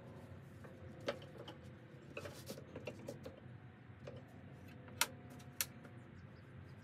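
Woodturning tools clicking and clinking as they are handled and picked out of a case, with sharp knocks about a second in and twice near five seconds in, over a steady low hum.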